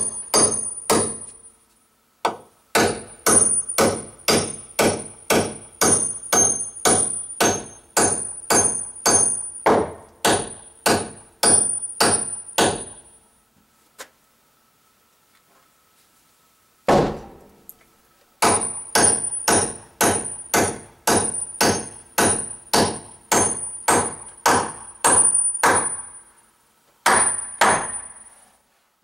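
A hammer driven overhead in steady runs of blows, about two a second, most of them with a high metallic ring. The blows stop for a few seconds near the middle, one blow comes alone, then the hammering resumes.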